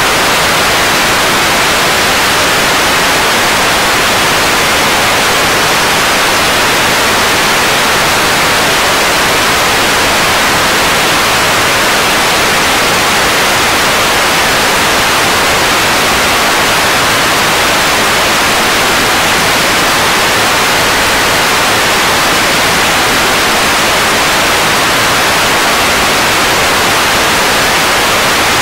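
Loud, steady static hiss like white noise, even and unbroken throughout, brightest in the upper-middle range.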